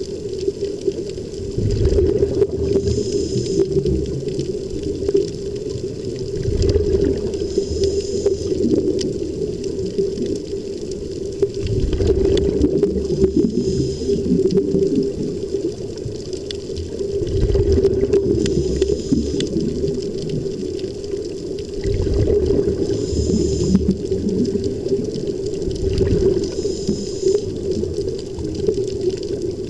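Underwater bubbling and the steady drone of pumped air flowing through helmet-diving helmets, swelling in a surge about every four to five seconds.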